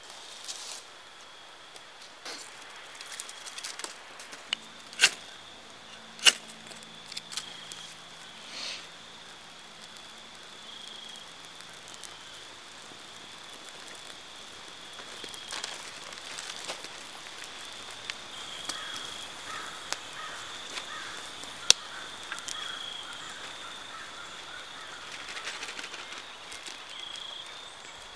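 Dry sticks snapping sharply, three loud cracks among smaller clicks and leaf rustling, as campfire kindling is gathered and broken; later a small wood campfire crackling. A steady high-pitched whine sits in the background throughout.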